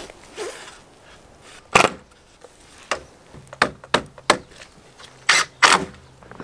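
A wooden 1x3 board knocking and clattering against PVC pipe hoops as it is handled into place, making a series of sharp knocks, several in quick succession in the middle and near the end.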